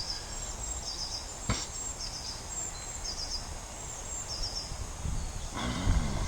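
Wind rumbling on the microphone, with short high chirps recurring about every second and a single sharp click about a second and a half in.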